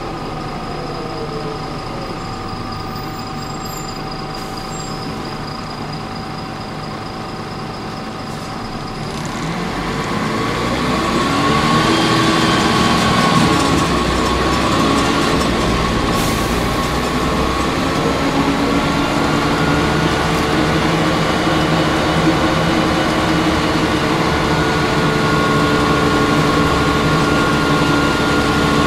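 Volvo B10L bus's diesel engine heard from inside the cabin, running steadily and fairly quietly at first. From about nine seconds in it grows louder as the bus pulls away, its note climbing as it accelerates through the ZF automatic gearbox, and then it carries on running under load.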